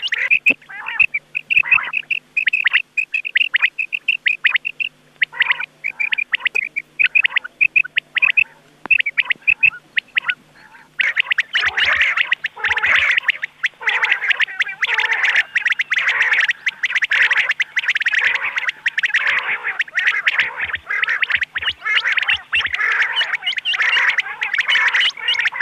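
Rain quail calling: quick series of short, sharp repeated notes, used as a lure call for quail hunting. From about eleven seconds in the calls come thick and overlapping.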